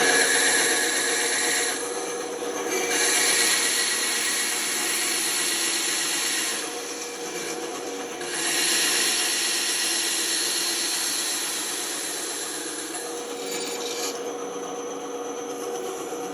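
A woodworking power tool's motor running steadily while wood is worked against it, giving a bright hiss that drops away about two seconds in, again around seven seconds in, and again near the end, as the work is eased off and pressed back in.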